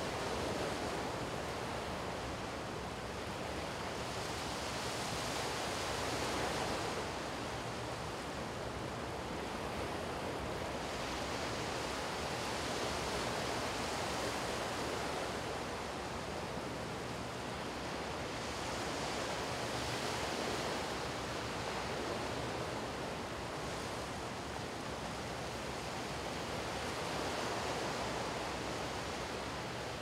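Small waves breaking and washing up on a sandy beach: a steady hiss of surf that swells and eases every six or seven seconds.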